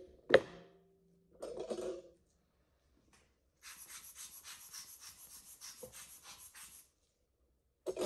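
Hand work at a practice typodont in a mannequin head: a sharp click, then a short clatter, then a few seconds of rhythmic scratchy rubbing at about four strokes a second, and another clatter near the end. The surgical handpiece is not running.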